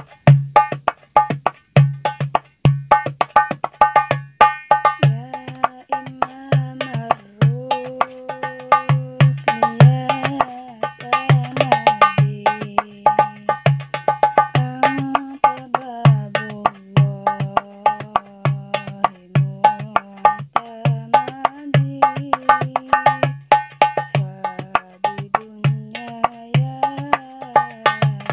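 Darbuka played by hand in a fast rhythm: deep bass strokes repeat steadily under quick runs of sharp, high rim strokes. About five seconds in, a gliding melody line joins above the drumming.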